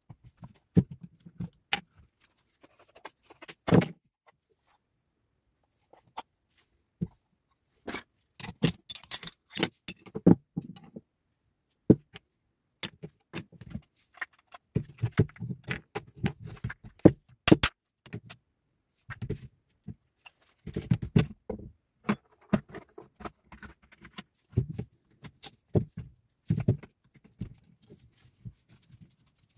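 Car starter motor being taken apart by hand: irregular metallic clinks, clicks and knocks as its steel and aluminium parts are handled, pulled apart and set down, with a quieter pause about four to seven seconds in.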